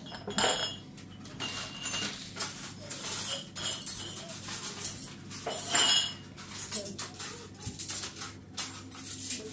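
Dishes and metal utensils being handled: a run of irregular knocks and clatter, with several short ringing clinks.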